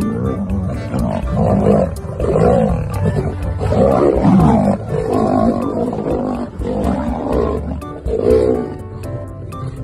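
Lions snarling and growling in a fight, a run of loud, rough snarls about once a second, with background music and a steady beat underneath.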